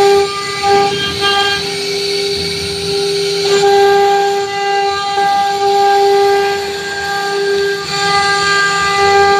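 CNC router spindle running with a steady high whine as its bit carves grooves into a wooden board. The cutting noise swells and dips as the bit moves along the lines.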